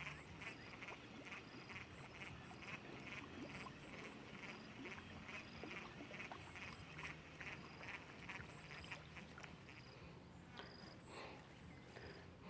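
Faint animal calls: a rapid series of short, evenly spaced calls, about three a second, that thin out after about seven seconds, over a steady high-pitched buzz.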